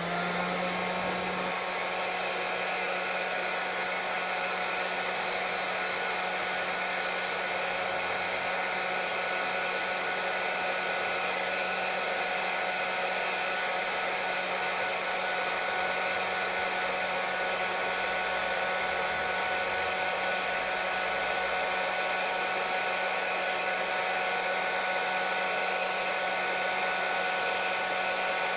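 Hand-held hair dryer blowing steadily at full speed, a constant rush of air with a steady motor hum, reaching speed right at the start.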